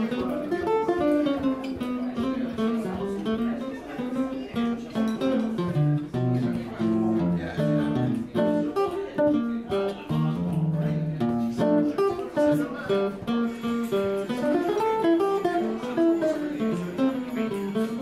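Jazz guitar taking a solo: quick runs of single notes mixed with chords, played without pause.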